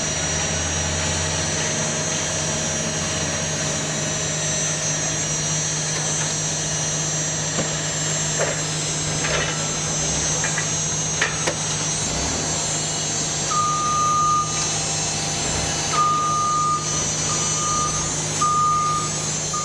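Steady drone of an industrial baler's machinery running, with a constant low hum and high whine, and a few short knocks in the middle. From about two-thirds through, a warning beeper sounds a repeated single-pitch beep, like a reversing alarm.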